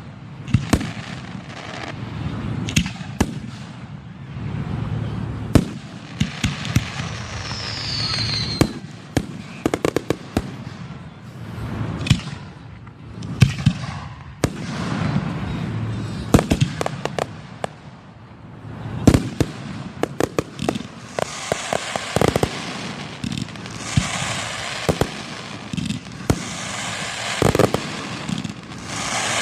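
Fireworks display at close range: shells bursting in a steady run of sharp bangs over a low rumble of echoes. A short falling whistle comes about eight seconds in, and the last third is a denser stretch of rapid pops and hiss.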